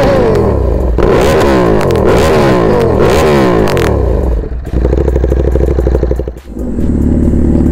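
A superbike engine is revved in quick, repeated throttle blips, its exhaust popping and crackling, the kind of revving used to make the exhaust throw flames. About four and a half seconds in it drops to a steady idle.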